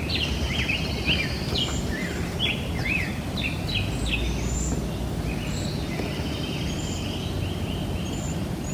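Birds singing, with many short quick chirps that rise and fall in pitch, over a steady low rumble.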